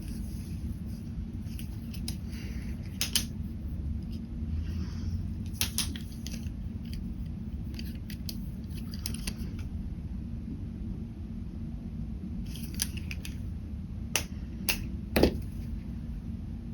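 Ballpoint pen scratching on paper in short, scattered strokes, with several sharp clicks, the loudest near the end, over a steady low hum.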